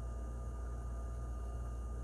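Kegco kegerator running with the wheezing noise it has developed: a steady low hum that pulses about twice a second, with a thin steady whine above it.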